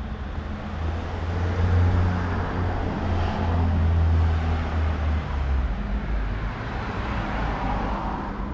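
A motor vehicle driving past close by in street traffic: a low engine hum swells about a second in and eases off after about five seconds, over steady tyre and road noise.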